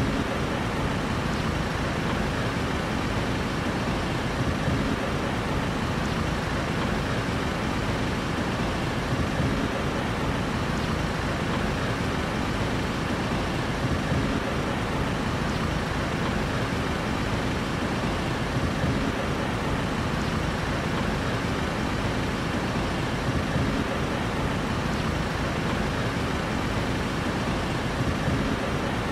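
Steady city street traffic noise: vehicle engines and road sound blended into an even, unbroken background with no single standout event.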